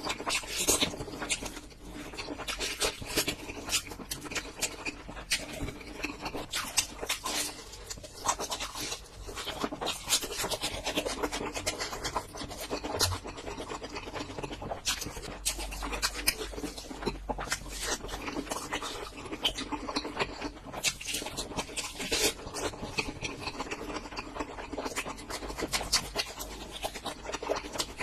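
Close-miked chewing of food, a dense, unbroken run of wet crackles and clicks.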